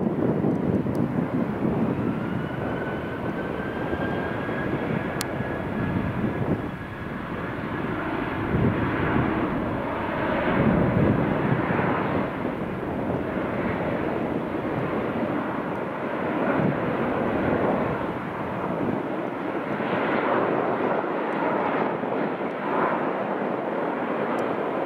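Boeing 737's CFM56 turbofan jet engines running at high power: a loud rumble that swells and eases, with a thin whine that rises in pitch over the first few seconds and then holds.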